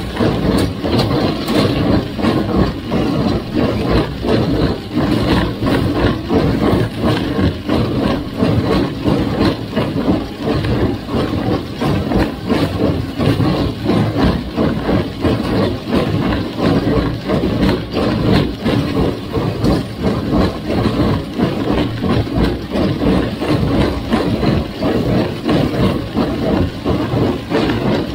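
1958 Farmall 350's four-cylinder gasoline engine running steadily, with a fast, uneven pulsing in its sound.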